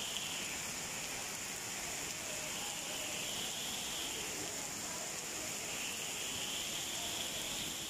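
Heavy rain pouring steadily onto wet paving and trees, an even hiss that doesn't let up.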